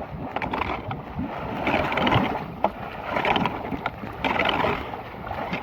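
Floodwater rushing and gurgling into a street storm drain that has just been cleared of debris, swelling and easing every second or so, with a short knock about halfway through.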